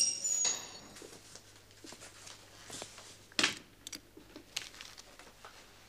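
A heavy wooden door creaks with a high squeal as it swings shut. A few seconds later comes a single sharp knock, then faint scattered ticks and rustles of quiet movement.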